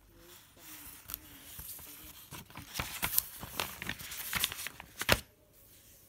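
Paper pages of a handmade notebook being leafed through and handled: rustling with quick flicks, and a sharp, loud flick about five seconds in.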